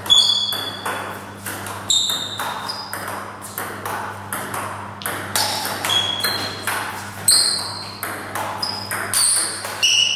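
Table tennis ball in a continuous rally, clicking off the bats and the table about every half second, each hit with a short high ping. A steady low electrical hum runs underneath.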